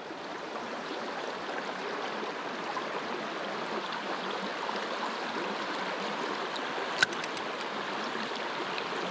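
Creek water flowing steadily, with one sharp click about seven seconds in.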